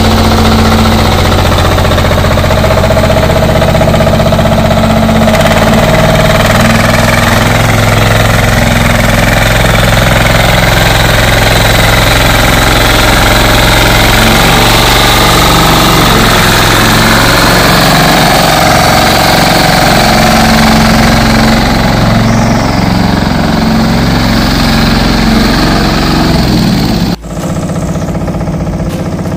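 Single-cylinder engine of a patpat walking tractor running steadily with a chugging, knocking beat. Near the end the sound drops suddenly and goes on quieter.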